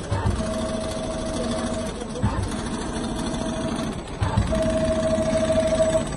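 Richpeace automatic computerised sewing machine stitching a leather upholstery panel: steady running machine noise, with a steady humming tone that sets in for a second or so and stops, three times, each stretch starting with a low knock.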